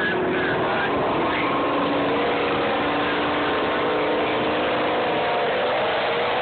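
Race vehicle engines idling at the drag strip start line, a steady engine drone with a few held tones that shift slightly in pitch.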